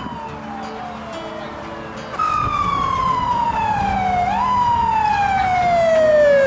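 Emergency vehicle siren wailing in slow falling sweeps. One tone fades out at the start; another comes in about two seconds in and slides down, jumps back up about four seconds in, and slides down again.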